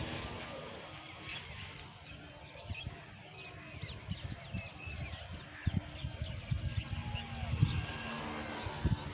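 Wind buffeting the microphone in irregular low thumps, with small birds chirping now and then.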